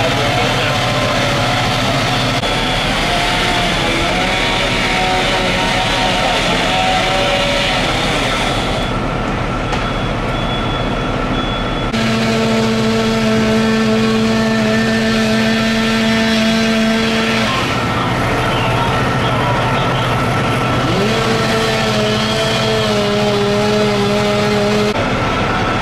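Fire apparatus engines running steadily at a fire scene, a loud low drone. In parts a higher-pitched small engine whine joins it, rising once about three quarters of the way in. The sound changes abruptly a few times.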